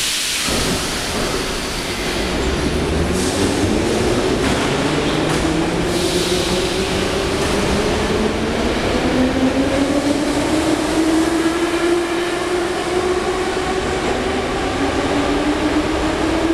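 Moscow Metro train pulling out of the station and accelerating: its traction motors whine in several tones that rise steadily in pitch over a running rumble. Short hisses of air come at the start and again about 3 and 6 seconds in.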